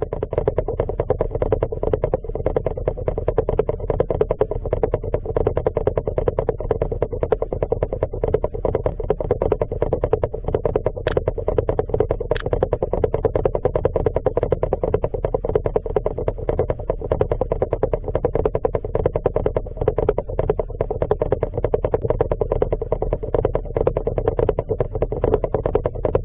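Muffled, steady crackling underwater noise picked up by a submerged camera in its waterproof housing, unchanging throughout, with two sharp clicks about eleven and twelve seconds in.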